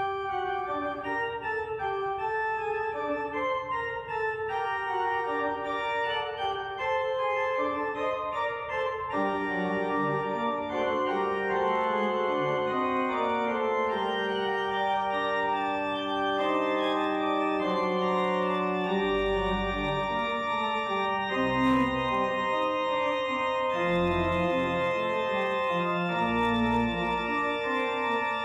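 Church organ playing the closing postlude: slow, sustained chords. Deep bass pedal notes join about two-thirds of the way through.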